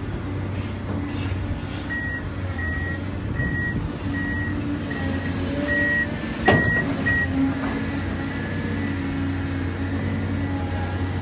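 Tracked hydraulic excavator's diesel engine running steadily while digging, with a high back-up alarm beeping repeatedly for about five seconds from two seconds in. A single sharp clank about six and a half seconds in is the loudest sound.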